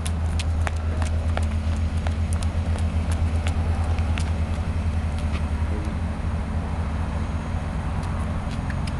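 Steady low hum of a vehicle engine idling, pulsing quickly and evenly, with occasional light clicks over it.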